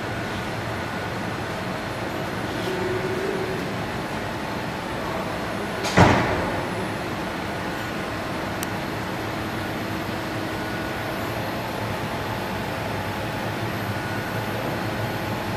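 Monti Antonio 180T heat-transfer calender running steadily, its rollers and belt carrying paper and printed sheets through. A single sharp bang about six seconds in.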